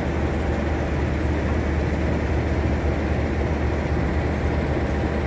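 Steady low rumble of a CC206 diesel-electric locomotive's engine idling, running evenly without revving.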